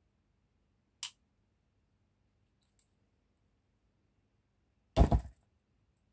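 Handmade copy of a Buck 110 lockback folding knife: one sharp click about a second in as the blade snaps shut, then a louder, heavier knock near the end as the closed knife is set down on the table.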